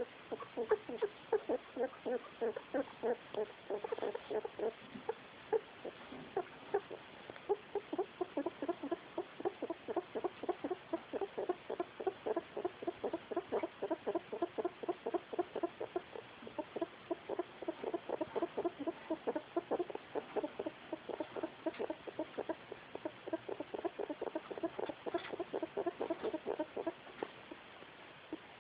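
Female pet rat making a weird, worrying noise: short clucking pulses repeated about three times a second, going on steadily without a break. It is an abnormal sound that has kept up for nearly a week.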